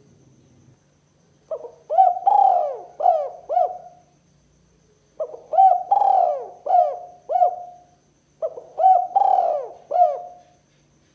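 Spotted dove (tekukur) cooing: three phrases of four or five coos each, separated by short pauses.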